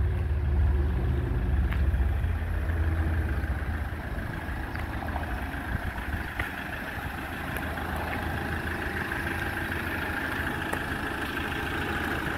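Fiat Ducato-based motorhome's diesel engine idling steadily, growing clearer near the end, with wind rumbling on the microphone in the first few seconds.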